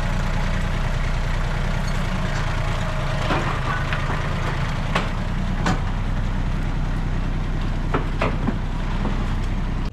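Compact tractor engine running steadily, with a few sharp knocks about halfway through and again near the end.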